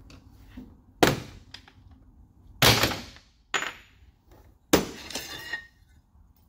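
Clamp and metal handling on a workbench: four sharp knocks and clanks as a quick-grip bar clamp is released and the aluminium Kirkey seat back brace is moved. The second and last knocks ring briefly.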